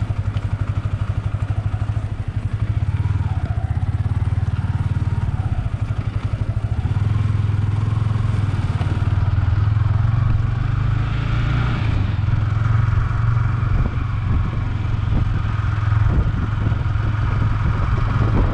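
Motorcycle engine running steadily with an even, rapid firing pulse, its note shifting slightly a couple of times.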